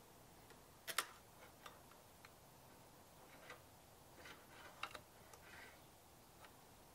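Faint metallic clicks and light scraping as a magnetic pickup tool draws the fork spring up out of a 2022 Kawasaki KLR650's front fork tube. The sharpest click comes about a second in, and smaller ticks follow between about three and six seconds in.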